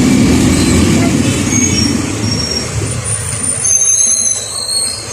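Road traffic: a vehicle engine running with a low rumble that eases after about two and a half seconds, followed by a few thin high-pitched squeals near the end.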